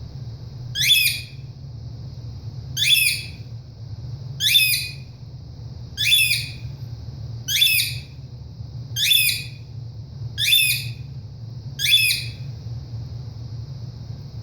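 Pet ringneck parrot squawking over and over, eight short harsh calls about one and a half seconds apart. It is the call he gives when his owner leaves the room.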